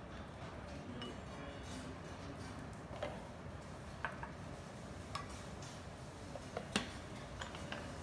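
Light clinks and knocks of tableware: a serving utensil against a black pot, a ceramic rice bowl set down on the steel counter and the pot's lid put on. There are about half a dozen separate clicks, starting about three seconds in, with the sharpest near the end, over a steady low room hum.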